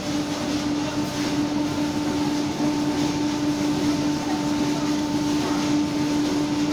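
Automatic conveyor machinery in a corrugated-board factory running: a steady hum with one constant mid-pitched tone over a continuous noisy mechanical din.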